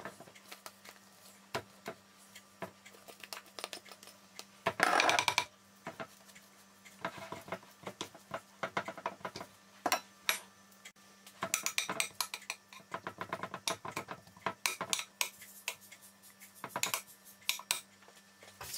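A spoon scraping and tapping against a ceramic baking dish as mashed potato is pressed and spread in it. Irregular light clicks, with one longer scrape about five seconds in.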